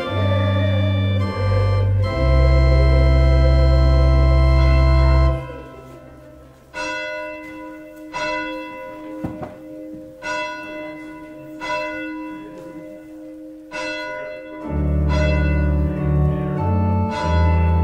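Organ postlude: loud sustained chords over a deep bass, dropping about five seconds in to a softer passage of bell-like chords struck roughly once a second, then swelling back to full chords with bass near the end.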